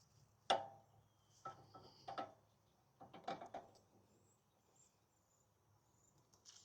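A series of short metallic knocks and clinks, some with a brief ring, from hand tools and metal parts being handled. The loudest comes about half a second in, and a quick cluster follows about three seconds in.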